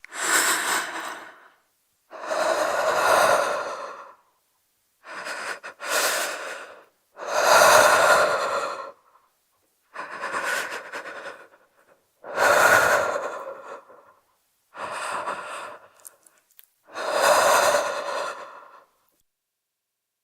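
A woman breathing tensely through an open mouth, shivering with cold: about eight long breaths in and out with short silent gaps between them, one of them stuttering about five seconds in.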